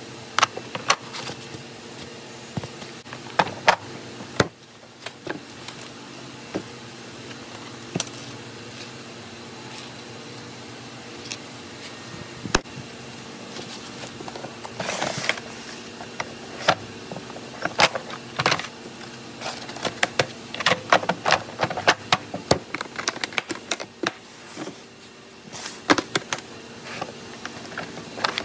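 Milwaukee Shockwave steel impact sockets clinking and clacking against one another and against the hard plastic PACKOUT organizer case as they are handled and set into its trays. The sharp clicks come irregularly, sparse at first and thicker in the second half, over a steady background hum.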